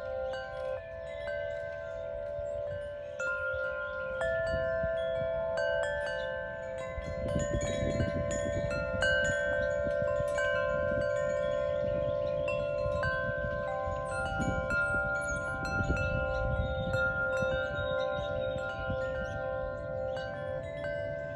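Wind chimes ringing, many clear tones struck at scattered moments and left to ring on, overlapping one another.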